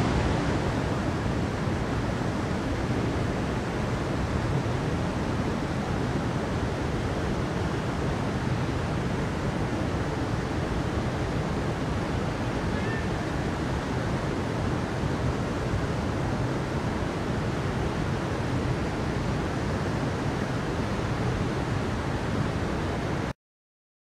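Steady rushing of a shallow stream flowing over rocks, cutting off suddenly shortly before the end.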